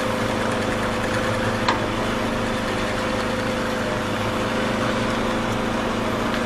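Electric motor of a hollow-chisel mortise machine running steadily, with one sharp click about a second and a half in.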